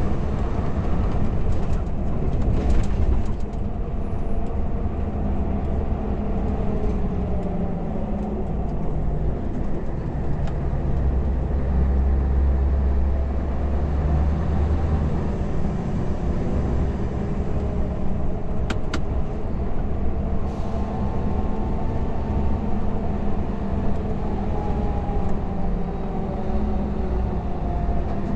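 Scania R580's V8 diesel engine and tyre noise heard inside the cab of a truck under way, loaded to 36 tonnes. The engine's pitch rises and falls gently, with a few faint clicks.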